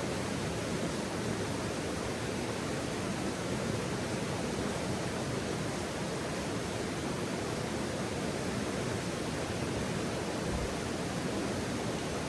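Campfire-side outdoor ambience: a steady, even rushing noise with no crackles or pops.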